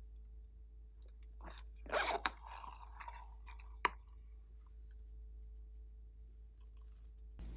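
Small plastic sequins tipped out of a plastic container into a palm: a brief rattling clatter with sharp plastic clicks about two seconds in, a lighter rustle after it, and one sharp click near four seconds. Near the end there is a short, high, hissing rustle.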